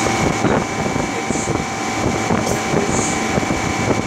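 Refrigeration condensing unit running: a steady mechanical hum and rumble with a constant high whine.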